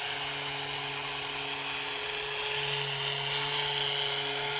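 Handheld Rapid Release high-frequency vibration therapy device buzzing steadily at about 150 Hz as it is pressed into a patient's back muscles.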